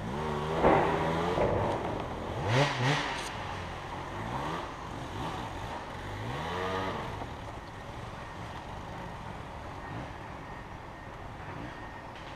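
Off-road vehicle's engine revved about four times in the first seven seconds, each rev rising in pitch, with a brief clatter about two and a half seconds in; then it settles to a lower, steady run.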